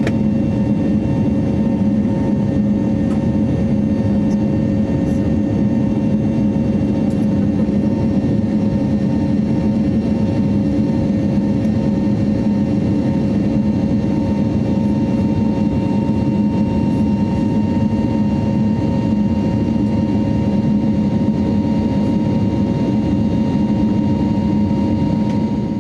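Steady cabin noise of an Airbus A320neo climbing out after take-off, heard inside the cabin: an even low drone of the jet engines and airflow with a few faint steady tones over it.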